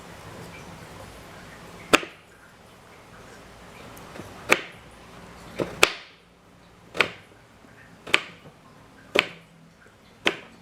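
A series of sharp, single chopping knocks on a hard surface, as when ingredients are cut or crushed. They start about two seconds in and then come roughly once a second, two of them in quick succession near the middle.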